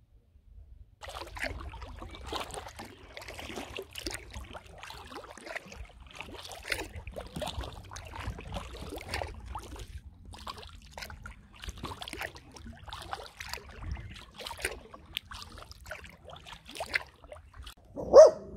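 Kayak paddling on calm water: irregular splashes as the paddle blades dip, with water trickling and dripping off them. Near the end a dog barks once, loudly.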